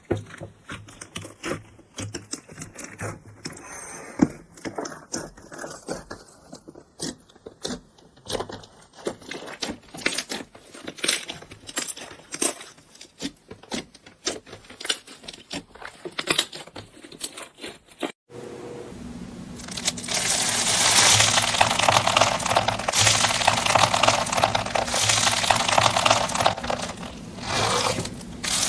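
Crunchy slime being handled, with many sharp crackles and pops. About 18 seconds in it breaks off, and a denser, louder crackling follows.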